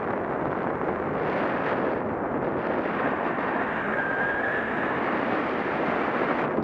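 Wind rushing over an action camera's microphone in paraglider flight: a steady, dense roar of airflow noise. A faint brief tone sits on top about four seconds in.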